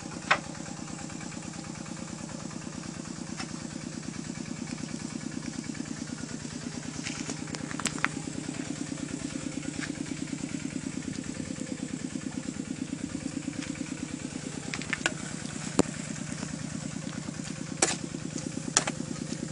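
A small engine running steadily nearby, an even low throb, with a few sharp clicks of a metal spoon against the wok.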